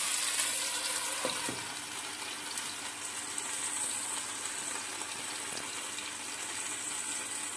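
Boneless chicken pieces in a green masala coating frying in olive oil in a lidded pan: a steady sizzle that eases a little in the first couple of seconds, then holds level.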